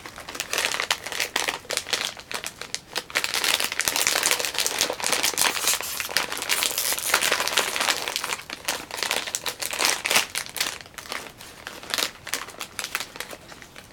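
Plastic snack bag of Tohato Caramel Corn crinkling and crackling as it is handled and opened, with dense rustling that eases somewhat near the end.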